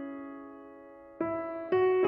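Slow background piano music: a held chord fades away, then new notes are struck a little past a second in and again near the end.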